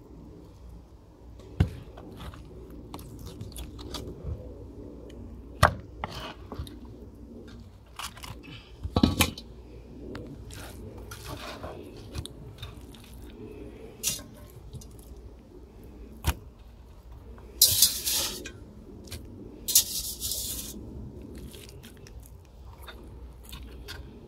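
Mora 711 knife cutting and scraping meat off a pig's head on a wooden cutting board: scattered sharp knocks of the blade against the board and bone, and a few short rasping scrapes.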